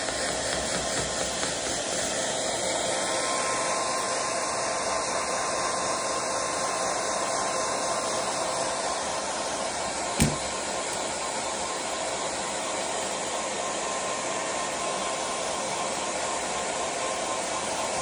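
Hair dryer running steadily, an even rushing hiss with a faint steady whine. A single sharp knock about ten seconds in.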